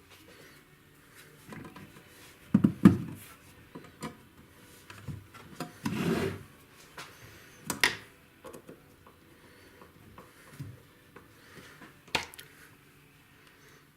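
Scattered clicks, knocks and brief rubbing of metal and wooden parts being handled and worked on at a workbench while a pickup winder is taken apart. The loudest are a cluster of dull thuds about three seconds in, a short scrape around six seconds, and sharp clicks near eight and twelve seconds.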